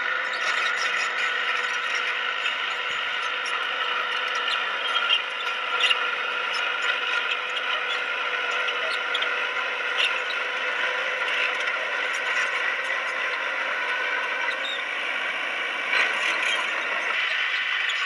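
Crawler bulldozer working: a steady mechanical drone with the squealing and clicking of its steel tracks and running gear, and a few louder clanks.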